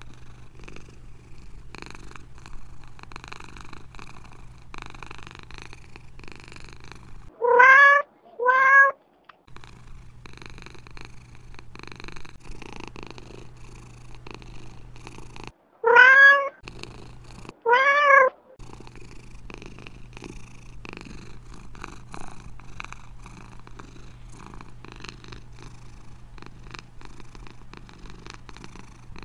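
Domestic cat purring steadily, broken by two pairs of loud meows, the first pair about seven seconds in and the second about sixteen seconds in. Each meow rises and falls in pitch, and the purring drops out while they sound.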